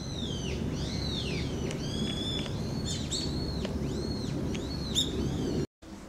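A songbird calling in a run of short, clear notes that each rise and fall, about two a second, over a steady low background rumble; it cuts off abruptly near the end.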